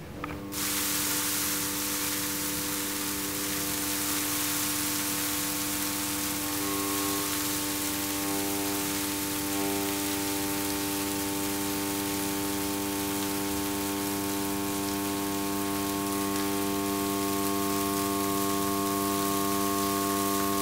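Loudspeaker-driven Chladni plate buzzing at a steady 99 Hz tone with many overtones, under a loud steady hiss of grains bouncing on the vibrating metal plate. Both start together about half a second in.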